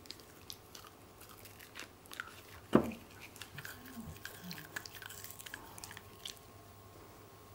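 Pembroke Welsh Corgi puppy biting and chewing a plastic toothbrush held out to it: quick clicks of teeth on the plastic, with one loud sharp knock about three seconds in.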